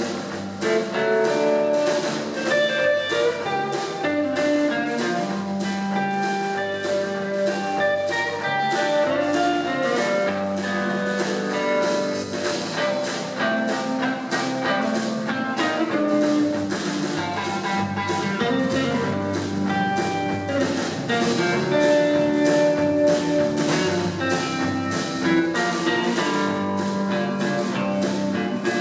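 Jazz trio playing live: electric guitar carrying the melody over bass and a drum kit, with cymbal strokes keeping a steady pulse.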